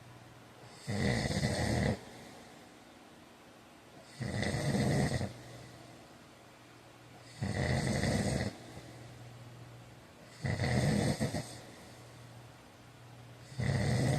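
A man snoring loudly in his sleep: five snores about three seconds apart, each lasting about a second, with quieter breathing between them.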